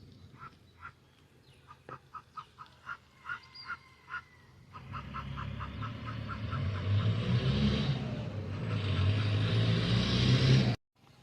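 Ducks quacking in short repeated calls. About halfway through, a loud low rumble and rushing noise swells up, grows steadily louder, and cuts off suddenly near the end.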